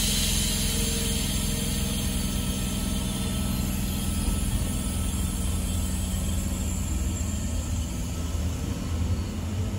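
Double-deck electric Intercity V set train pulling out and rolling past, a steady low hum and rumble from its carriages. A brief hiss at the very start.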